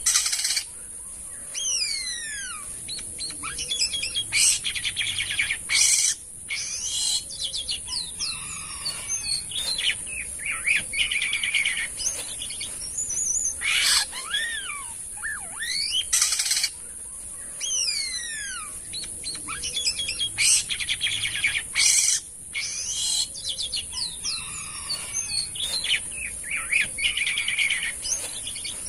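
Jalak kapas starling singing: swooping whistled notes mixed with harsh, rasping chatter, in a phrase that repeats about every eight seconds, over a steady high hiss.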